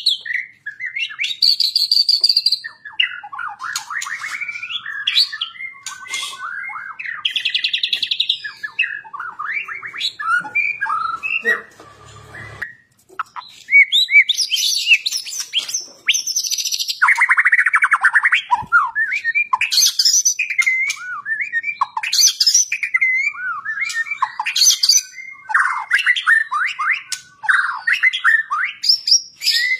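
White-rumped shama (murai batu) singing loudly in an energetic, aggressive fighting-style delivery: a fast run of varied phrases, rapid trills, buzzy rattles and sharp whistles, with a short pause about twelve seconds in.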